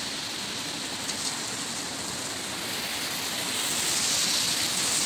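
Steady hiss of car tyres on a wet street, getting somewhat louder near the end.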